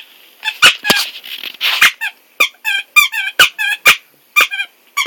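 Squeaky toy being squeaked over and over in quick, wavering squeaks, about two to three a second and often in pairs, as a dog chews it. There is a short breathy rush about a second and a half in.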